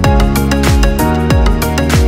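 Background music with a steady electronic beat: a deep kick drum a little under twice a second under sustained synth notes.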